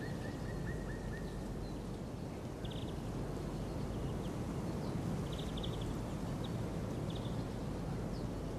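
Outdoor field ambience: a steady low rush of open-air background noise, with faint, short, high chirps now and then.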